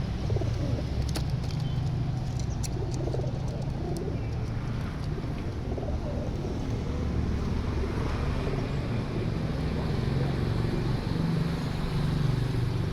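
Many domestic pigeons cooing together in a low, continuous murmur, with a few faint clicks in the first few seconds.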